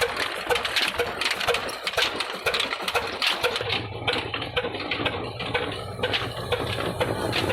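Old stationary diesel engine running with a rhythmic metallic clatter, about four knocks a second. A steady low hum joins about halfway through.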